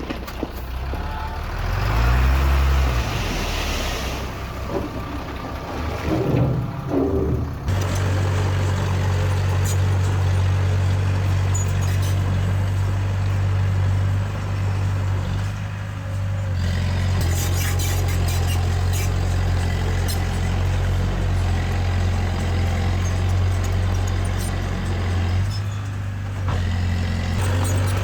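Diesel engine of heavy earth-moving machinery running, revving up and back down about two seconds in, then running steadily and loudly from about eight seconds on.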